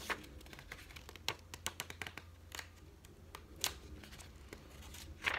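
Faint rustling of paper with scattered light clicks and ticks as a book's pages are handled, the loudest rustle near the end.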